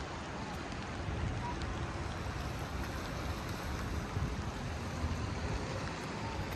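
Floodwater of the swollen Salinas River rushing steadily, a constant noise heavy in the low end.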